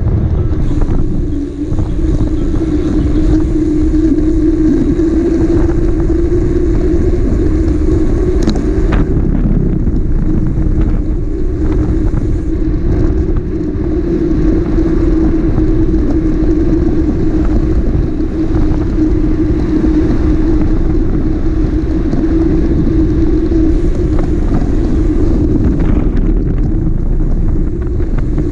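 Sport motorcycle engine running at a steady cruising speed, a continuous drone over a heavy low rumble.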